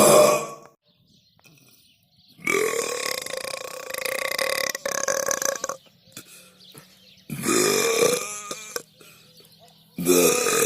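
A person belching over and over: the end of one burp, then a long drawn-out burp of about three and a half seconds, a shorter burp that breaks into a rapid rattle at its end, and another beginning near the end.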